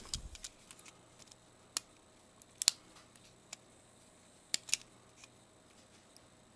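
Clippers snipping small plastic tabs off a camera's plastic front cover: a few sharp, separate clicks with quiet between them, the loudest a quick double snap near the middle.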